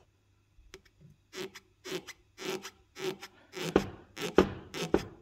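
Worn front rubber bushing (silent block) of a Honda Accord front lower control arm, crunching as the arm is rocked by hand in its working position. The crunches start about a second and a half in and come in a steady rhythm of about two a second. The mechanic takes the crunch for a bushing torn somewhere inside, the cause of the car's suspension creak over speed bumps.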